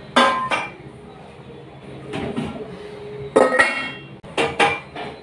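Stainless-steel kitchen dishes clanking on a counter: a sharp metallic knock with ringing at the start, then a cluster of knocks and clinks about three and a half seconds in and two more just after four seconds.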